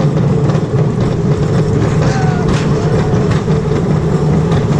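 Roller coaster train running along its steel track, a loud steady rumble of the wheels, with a few faint brief squeals.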